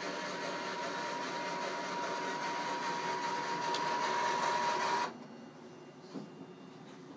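Fruit machine's coin hopper motor running empty, a steady mechanical whirr with a steady high tone over it, cutting off suddenly about five seconds in. It is being run after a dump to reset it, so no coins come out. Two faint clicks follow.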